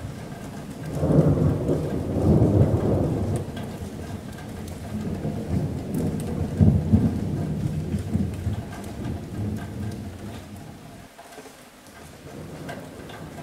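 Rolling thunder over steady rain on a metal roof. The thunder swells loud about a second in and again around six seconds, then fades to a lull near the end while the rain keeps on.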